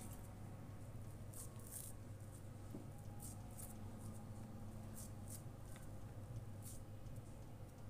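Hands squeezing and patting soft, moist shami kabab mixture of ground chicken and chana dal into patties: faint, soft squishes and pats at irregular intervals, over a steady low hum.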